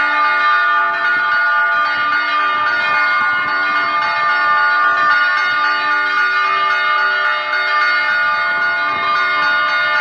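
Church bells ringing continuously, strokes overlapping into a steady, dense wash of ringing tones, with lower bell notes coming and going throughout.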